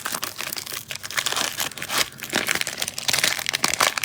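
Cellophane wrapper of a trading-card cello pack being torn and crinkled open by hand, a continuous crackling rustle.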